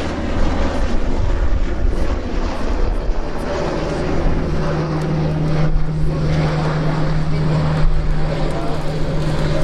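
F-15J fighter's twin F100 turbofan jet engines running, a steady loud rumble and roar; a steady low hum joins about halfway in.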